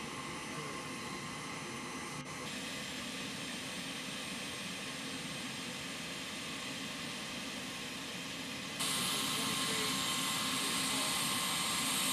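Aircraft turbine engines running on an airfield: a steady roar with a high whine, stepping up suddenly in loudness about nine seconds in.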